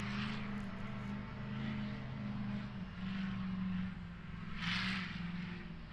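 Off-road rock-racing buggy engine revving up and down, swelling and easing every second or so as the buggy drives through snow.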